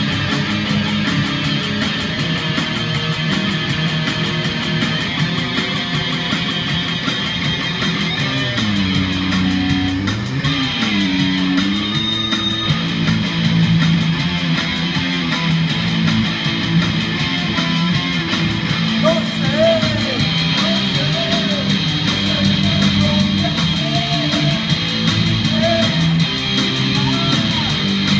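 Amplified electric guitars playing heavy metal. A lead line slides down and back up about nine to eleven seconds in, and from about nineteen seconds there are wavering, bent high notes over the riffing.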